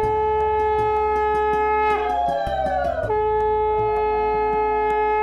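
Conch shell (shankha) blown in long, steady held notes during a puja, the note breaking off briefly about three seconds in and sounding again.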